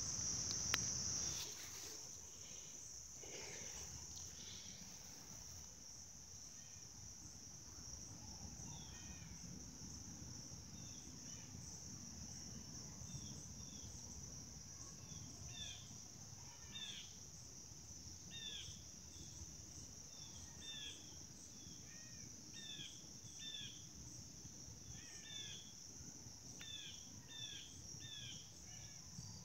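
Evening insect chorus of crickets: a steady high trill, with short falling chirps repeated in twos and threes from about eight seconds in. A knock and rustle in the first two seconds are the loudest thing.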